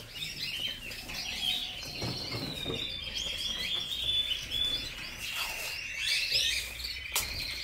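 Canaries singing: a rapid, running trill with many short chirps over it.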